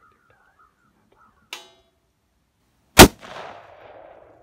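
A single loud gunshot fired at a deer during a hunt, about three seconds in: the shot that brought down the buck. Its echo rolls off over about a second. A short sharp click comes about a second and a half before the shot.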